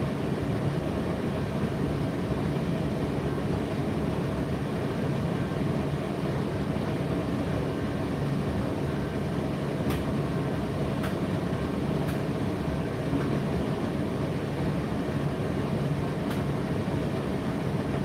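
Indesit IDC8T3 condenser tumble dryer running: a steady rumble and hum from the turning drum and its motor and fan. A few faint light ticks come in over the second half.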